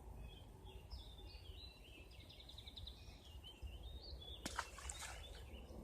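A songbird singing a long warbled phrase with a quick trill in the middle, faint, followed by a couple of sharp clicks about four and a half seconds in.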